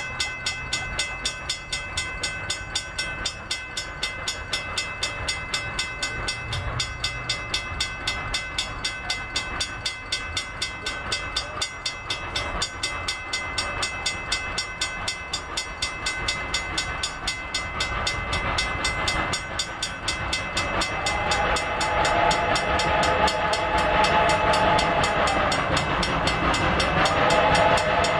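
A grade-crossing bell rings steadily in even, rapid strikes while a train approaches, growing louder from about two-thirds of the way in. The steam whistle of Reading & Northern 425 then blows one long blast and starts a second just before the end, a crossing signal.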